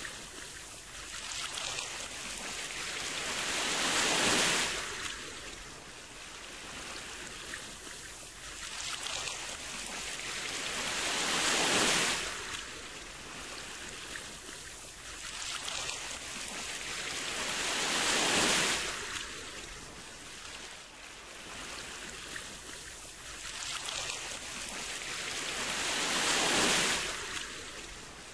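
Sea waves breaking and washing back: four slow swells about seven seconds apart, each building to a loud hiss and then falling away.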